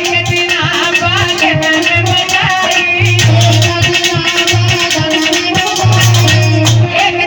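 Krishna bhajan music: a held low note under wavering melodic lines, with repeated low drum strokes keeping the beat and rattling percussion.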